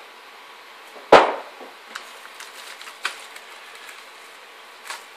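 Handling noises from unpacking a graphics card: one sharp knock on the wooden table about a second in, then a few lighter clicks and rustles as the card in its anti-static bubble bag is picked up.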